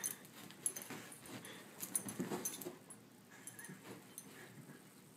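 Large black dog playing with a cat on a sofa: soft scuffling and light knocks on the cushions, with faint dog whimpers a few times. The sounds die down toward the end.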